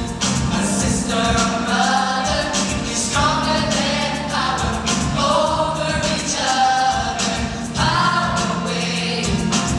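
A large mixed choir of young voices sings an upbeat song together with amplified lead singers on microphones, backed by a live band with drums and electric guitar keeping a steady beat.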